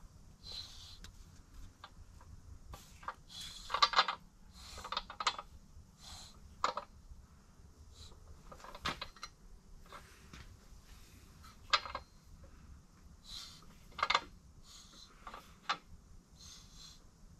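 BMW crankshaft being turned by hand in a bare engine block, resting on only its two end main bearings: irregular metal clicks, clunks and light scrapes, the loudest about four seconds in and again near fourteen seconds.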